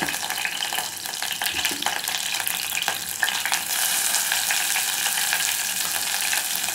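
Whole spices and curry leaves sizzling in hot coconut oil in a stainless steel pot, with a few sharp clicks. Just over halfway through, the sizzle grows louder and brighter as ginger-garlic paste goes into the oil.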